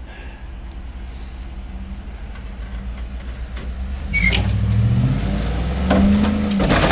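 Ford 4x4 pickup's engine pulling a loaded boat trailer up out of the pond over a steep dirt ramp. It runs steadily at first, then revs up under load about four seconds in, with a sharp knock. A second, higher surge near the end falls away.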